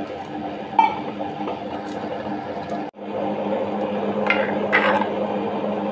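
Tabletop wet grinder running: its stone rollers churn thin rice-and-coconut batter in the steel drum, a steady motor hum with wet sloshing. The sound breaks off for an instant about three seconds in, and a few short clinks stand out near the end.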